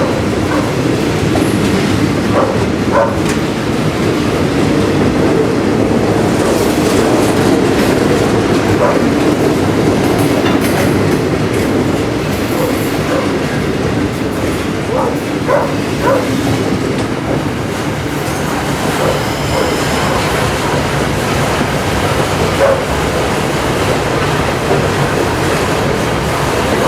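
Freight train rolling past: a steady rumble of wagons on the rails, with scattered clicks of wheels passing over rail joints.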